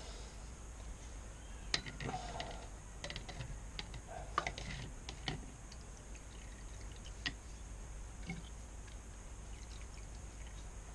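Scattered light clicks and taps at irregular intervals as motorcycle fork parts are handled on the bench, over a steady low hum.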